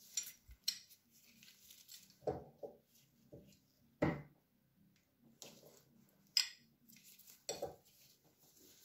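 Sharp metallic clicks and clinks, about six of them, as adjustable pliers grip and turn a brass blowtorch fitting held in a bench vise. The loudest comes about four seconds in.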